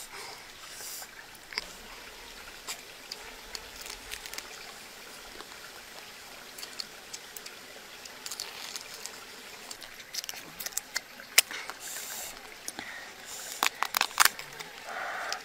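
Cooked mud crab being pulled apart and eaten by hand: scattered small cracks and clicks of shell and chewing, with a quick run of louder shell cracks near the end.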